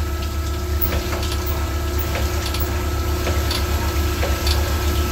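Sunnen CK-10 cylinder hone stroking in a cylinder of a Sprinter van engine block, its motor humming steadily while honing oil is pumped and splashes over the block, with a few faint ticks.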